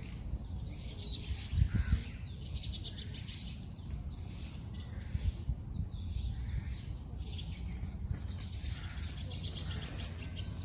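Several birds chirping and calling, with short rapid trills, over a steady high-pitched insect drone. There are a few low thumps about two seconds in.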